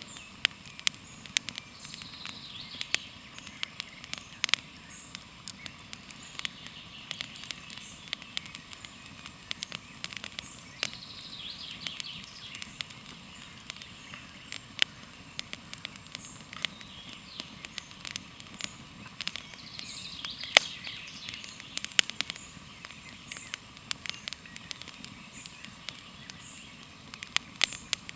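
Campfire crackling: irregular sharp pops and snaps, a few much louder than the rest, over a steady hiss that swells now and then.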